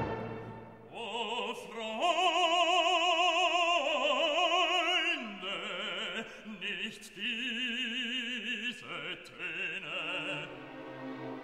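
Operatic singing: a voice holding long notes with strong vibrato, giving way to quieter orchestral music near the end.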